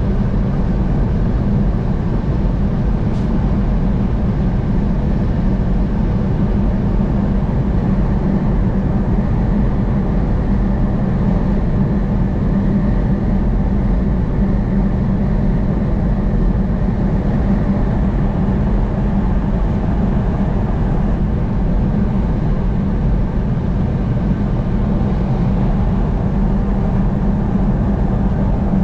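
Steady road and engine noise of a vehicle driving on a highway, an unchanging low rumble.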